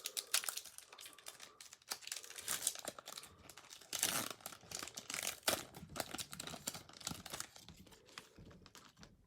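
Foil Pokémon Sword and Shield booster pack being torn open and crinkled by hand: a run of short crackling tears and rustles, loudest about four and five and a half seconds in.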